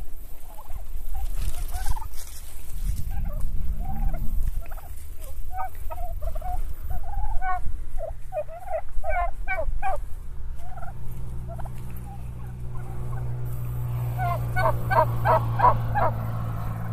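A flock of domestic turkeys gobbling, toms calling in quick rattling bursts again and again, with a dense run of overlapping gobbles near the end. A low steady hum sets in during the second half.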